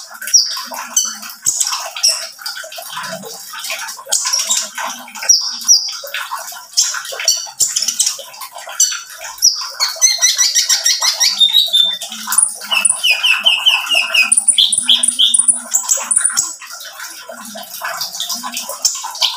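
A caged kolibri ninja sunbird singing a fast, varied song of short high chirps and trills, with a rapid rattling trill about ten seconds in.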